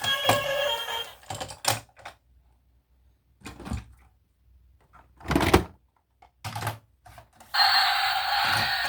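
Scattered clicks and knocks, the loudest about five and a half seconds in, typical of toy vehicles and their packaging being handled. A song ends about a second in, and a steady hiss starts near the end.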